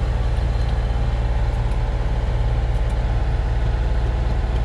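Sailboat's inboard diesel engine running steadily under way, a low, evenly pulsing hum heard from inside the cabin.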